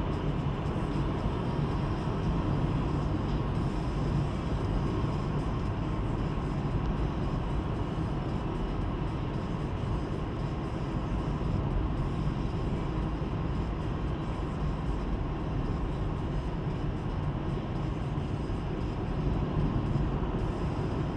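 A car with a 1.7 CDTI diesel engine driving along at a steady pace: engine and tyre-on-road noise.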